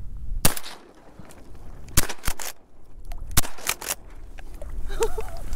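Shotgun shots at a duck: three loud reports about a second and a half apart, with lighter sharp clicks between them.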